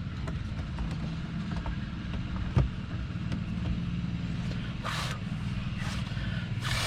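A lawn mower engine running steadily, with a single knock a little over two and a half seconds in and brief scrapes of plastic parts being handled near the end.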